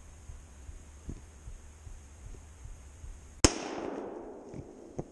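A single hunting rifle shot about three and a half seconds in, sharp and loud, its report rolling away through the woods for over a second.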